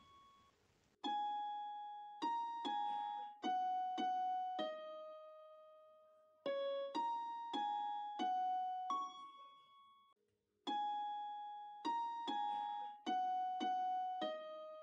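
Background music: a slow keyboard melody of single struck notes that ring and die away. The same short phrase starts about a second in and repeats twice, with brief gaps of near silence between the phrases.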